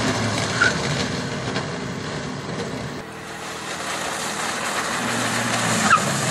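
Suzuki Ignis driving at speed on a test track: a steady rush of tyre and engine noise, changing abruptly about three seconds in.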